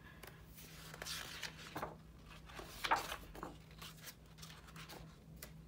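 Glossy pages of a thick photobook being turned by hand: several quick paper swishes and rustles, the loudest about three seconds in, over a faint steady hum.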